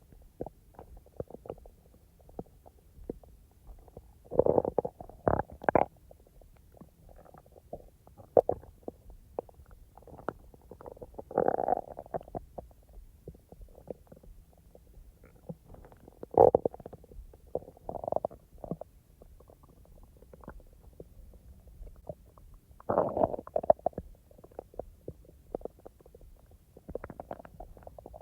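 A woman's stomach rumbling and gurgling with digestive noise, in irregular bursts: the loudest come about 4–6, 11, 16 and 23 seconds in. Faint small clicks and pops fill the gaps between them.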